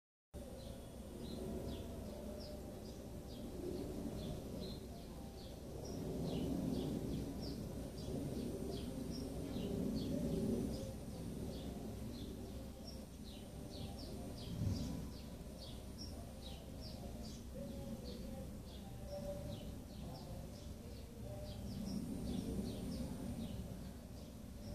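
Small birds chirping in quick short notes, about two a second, over a low background rumble that swells and fades.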